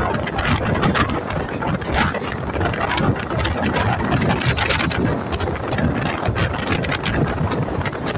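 MEMU electric passenger train running along the line: a dense rumble and rattle of wheels on the rails, full of irregular clicks, with wind buffeting the microphone.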